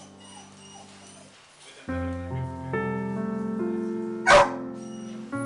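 Piano background music, with one short, loud bark from a bearded collie puppy about four seconds in.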